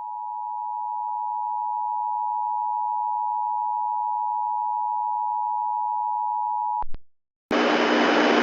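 Emergency Alert System attention signal: two steady tones sounding together, which cut off about seven seconds in. Two short blips and a brief silence follow, then a louder steady hiss with a hum starts near the end.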